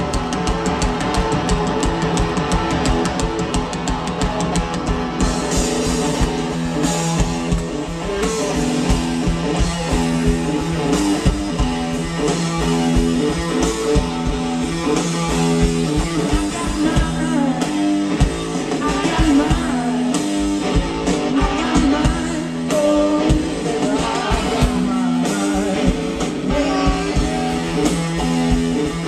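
Live blues-rock band playing loudly, heard from the audience: an electric guitar riff over a drum kit, with singing.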